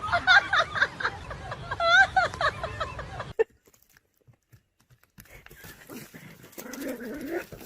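A pet animal calling out in a quick series of high cries that bend up and down in pitch, cut off suddenly about three and a half seconds in. After a short silence, fainter scattered sounds follow.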